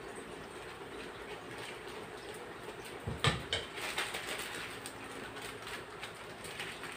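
A spatula tapping and a plastic piping bag crinkling as buttercream icing is spooned into the bag, with a few sharp taps a little over three seconds in, over a steady room hum.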